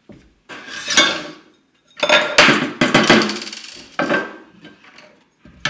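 Metal clatter and clinking as a metal amplifier chassis and its front panel are handled and set down on a wooden desk, with loose small screws rattling. There are several bursts of knocks with short metallic ringing, the busiest a couple of seconds in, then a pause before more near the end.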